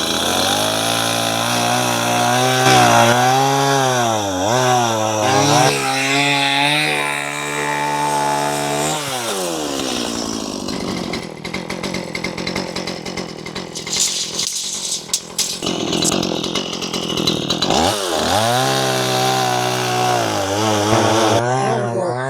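Small gasoline engine running, its speed rising and falling, then dropping off about nine seconds in. A rougher, noisier stretch with clicks follows before a steady engine note returns near the end.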